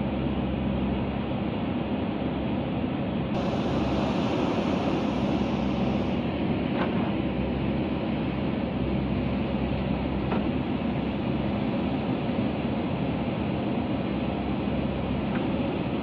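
JCB backhoe loader's diesel engine running steadily as its backhoe arm digs into the hillside soil, with a few faint clicks from the working arm and bucket.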